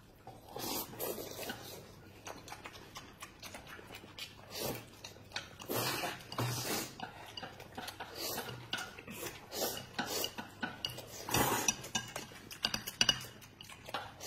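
Two people eating noodles with chopsticks: irregular clicks and scrapes of chopsticks against a large enamel basin and a china bowl, with a few longer bursts of slurping and chewing.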